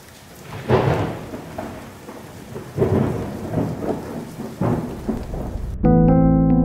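Thunderstorm sound: thunder rumbling in three rolls over a steady hiss of rain. It stops abruptly near the end, where electric piano music begins.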